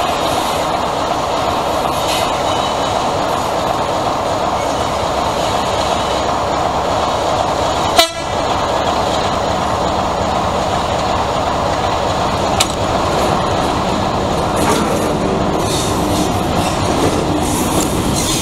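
Diesel locomotive engine running steadily as a Class 56 locomotive runs slowly toward the listener, drawing close near the end. A single brief sharp crack about eight seconds in.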